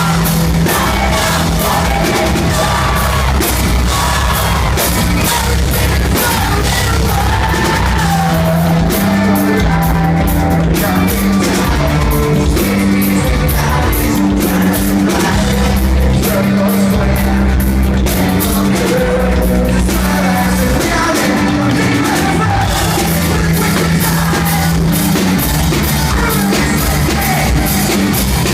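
Rock band playing loud, with drums, bass and guitars, and a vocalist singing and yelling over it.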